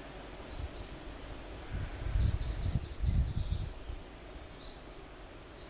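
Birds chirping outdoors in high, quick runs of notes, mostly between about one and four seconds in and again briefly near the end. Under them is a low rumble, loudest around two to three and a half seconds in.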